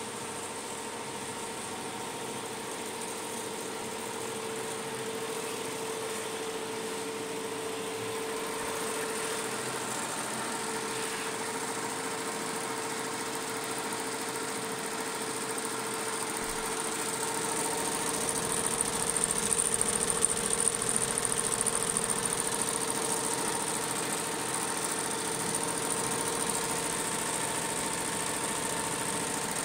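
Computerized embroidery machines stitching, including a Fuwei two-head machine: a steady mechanical whir with a high hiss, growing louder about eighteen seconds in.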